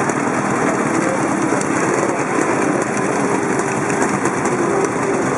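Several vintage motorcycle engines idling together in a steady, rough-running drone.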